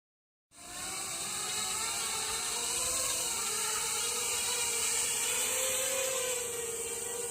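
A 3D-printed folding quadcopter's motors and propellers whirring in flight, starting about half a second in. Several close tones waver up and down and cross as the motors change speed, over a strong hiss.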